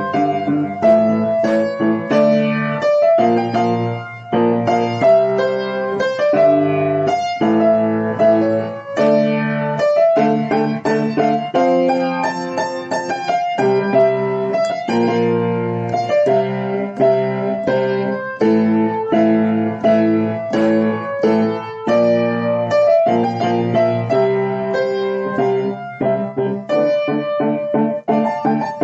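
Piano music: a piece played in a steady rhythm of struck chords and melody notes.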